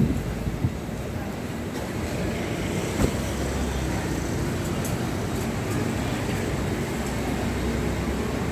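Steady low rumble of road traffic mixed with a running belt conveyor, with one sharp knock about three seconds in.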